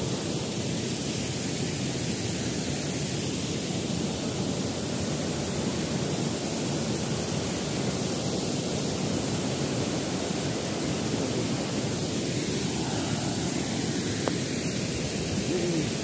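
Steady rushing roar of a waterfall pouring into a plunge pool.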